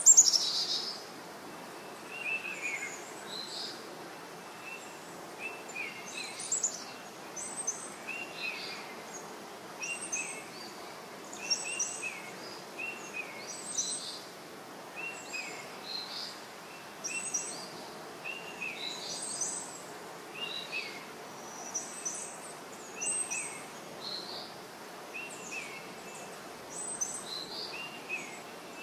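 Small birds chirping, short calls repeating every second or two over a steady outdoor hiss, with one louder high falling sound right at the start.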